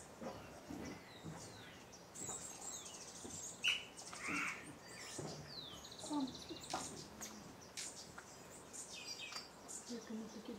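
Several wild birds calling: high chirps, a rapid high trill, a falling whistle and a short buzzy rattle. A single sharp click about three and a half seconds in is the loudest sound.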